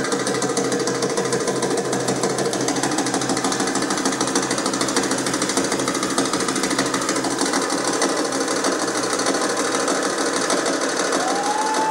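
Fast, even rattling of a dancer's beaded and coined hip belt during a rapid hip shimmy. A held tone comes in near the end.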